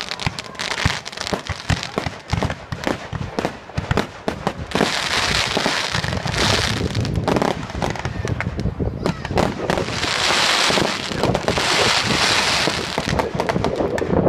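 Fireworks display: a rapid, irregular run of bangs and pops from rockets and bursting shells. There are two long spells of dense hiss, one about five seconds in and another from about nine and a half to nearly thirteen seconds, and the loudest bang comes right at the end.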